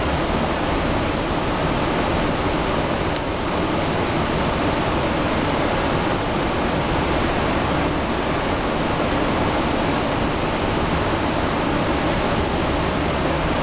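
Steady rush of river water pouring through the open gates of a dam and churning in the spillway below.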